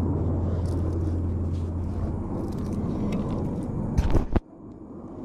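A steady low rumble, then a few loud knocks about four seconds in as a gloved hand bumps against the chest-mounted camera.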